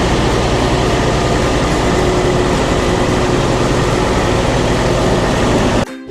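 Darjeeling Himalayan Railway narrow-gauge toy train under way: a steady engine rumble and rolling noise, which cuts off abruptly near the end.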